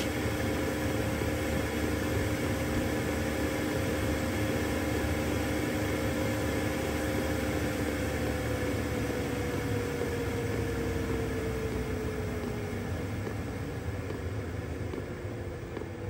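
A 2 kW Chinese diesel heater running: a steady whirring hum whose pitch slides slowly lower and grows a little quieter in the second half, as the heater is turned down from high toward its lowest setting.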